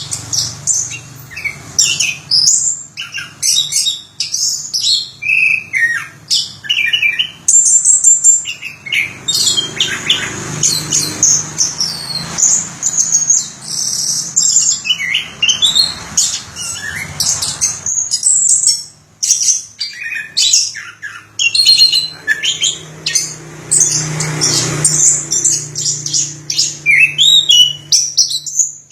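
Chestnut-capped thrush singing a long, unbroken song of rapid, varied chirps and whistles, with a faint low hum underneath.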